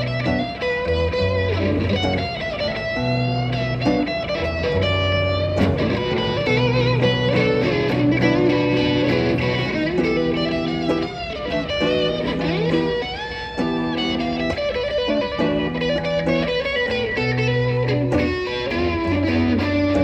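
Live electric guitar solo on a sunburst hollow-body electric guitar, with single-note lines and string bends that slide the pitch up and down. Underneath, a steady low bass line repeats.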